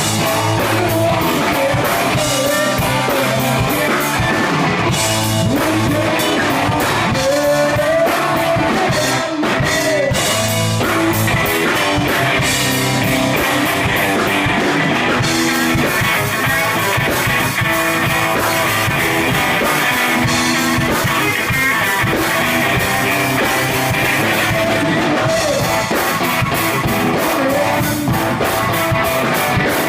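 Live rock band playing through amplifiers: electric guitars, bass and a drum kit with sung vocals, loud and continuous.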